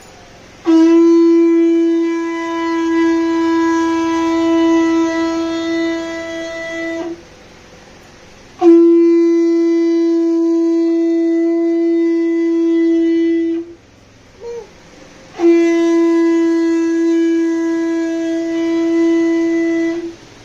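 Conch shell (shankha) blown in three long, steady blasts, each about five to six seconds with a short pause between, the ritual conch call of a Hindu puja.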